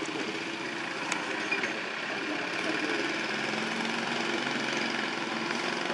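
A motor engine running steadily in the background, its hum drifting slightly in pitch, with a few faint clicks.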